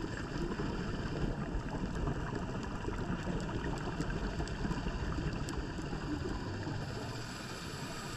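Steady, muffled underwater noise picked up by a diver's camera in its housing: a low rumble and hiss with a few faint scattered clicks.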